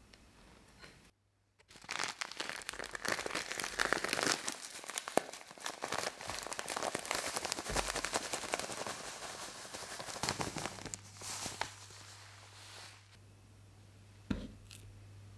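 Plastic packet of bread crumbs crinkling and rustling as the crumbs are poured out into a glass dish, a dense crackly hiss for about nine seconds. It then goes quieter, with a single light knock near the end.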